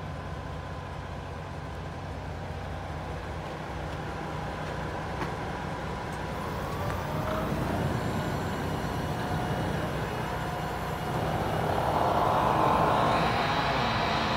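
Hino Profia truck's diesel engine idling steadily. A rushing noise swells over it after about eleven seconds and grows louder toward the end.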